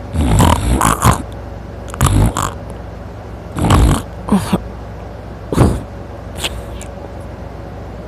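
A sleeping man snoring loudly with his mouth open, in a run of ragged, noisy breaths about every one to two seconds, several of them doubled as he breathes in and out.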